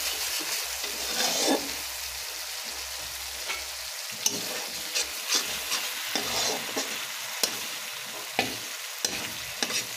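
Onion and ginger paste with chilli and turmeric frying in oil in a karahi, sizzling steadily while a metal spatula stirs and scrapes it, with sharp taps of the spatula on the pan every second or so in the second half.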